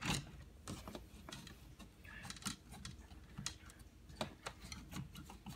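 Irregular light clicks and rustles of stiff insulated wires being bent and pushed back into an electrical wall box by hand.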